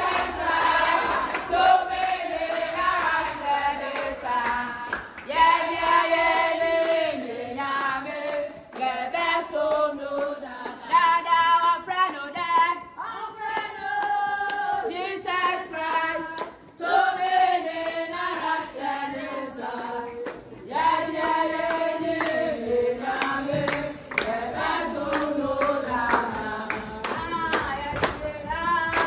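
A group of women singing together in chorus, clapping along in rhythm.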